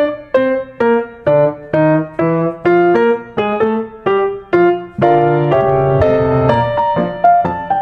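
Intro music on a piano-toned keyboard: a melody of single struck notes about two a second, becoming fuller with held notes from about five seconds in.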